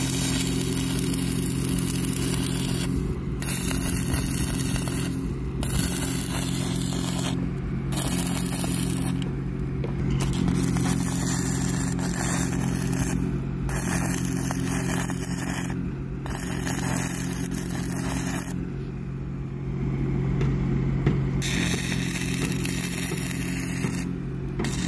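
Stick arc welding on steel rebar: the electrode's arc crackles and sizzles in runs of a few seconds. It breaks off briefly between runs, with a longer pause of about two seconds roughly three-quarters of the way through. A steady low hum runs underneath.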